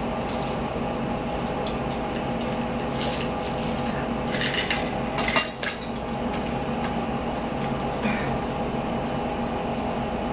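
Forks clinking and scraping on plates at a meal, in scattered clicks with a louder clatter about five seconds in, over a steady low hum.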